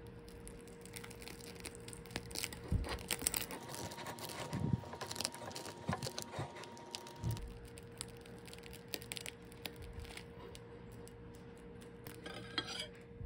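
Table knife and fork sawing through the crisp, air-fryer-toasted crust of a corn-filled bagel: dense crackling crunches and scrapes, thickest in the middle. A short scrape of cutlery on the ceramic plate near the end.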